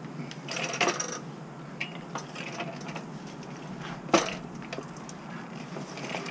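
Scattered clinks and clatters of small hard objects being handled on a garage floor: a short cluster about a second in and one sharp click about four seconds in, over a steady low hum.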